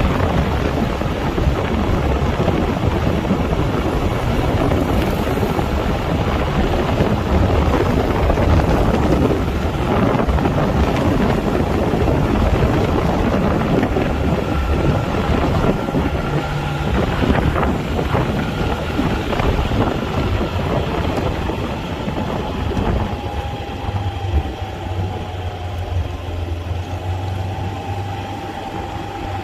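Steady rumble of a moving vehicle with wind noise on the microphone, easing a little near the end.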